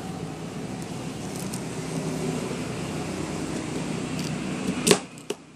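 Steady background noise, then one sharp click near the end, after which the noise drops away.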